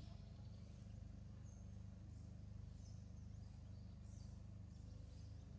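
Faint outdoor ambience: a steady low hum with scattered faint, short, high bird chirps.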